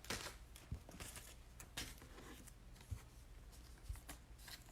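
Faint handling of trading cards: a few soft taps and light rustling over a low steady room hum.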